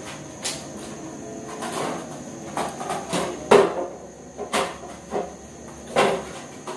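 Crockery and utensils knocking and clinking, a handful of separate knocks roughly a second apart, each with a short ring, as dishes are handled at a kitchen sink.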